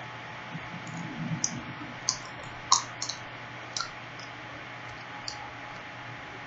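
Crisp, sharp crunches of a Kit Kat's chocolate-coated wafer being bitten and chewed: half a dozen short clicks in the first four seconds, then only a faint background hiss.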